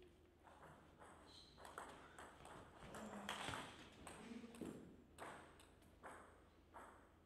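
Table tennis rally: the celluloid ball clicks sharply on the rackets and the table, several times a second in an irregular run.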